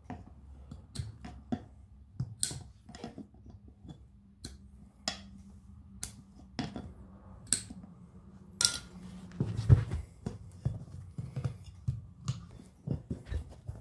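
Diagonal cutters working at the rubber valve stem of a riding-mower inner tube in a steel rim, making a series of sharp, irregular metal clicks and snips. From about two-thirds of the way in, denser clicks come with low thumps as the tire and rim are shifted by hand.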